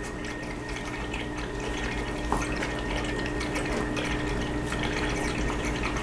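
Aquarium water trickling and splashing at the surface, with small irregular drips, over a faint steady hum.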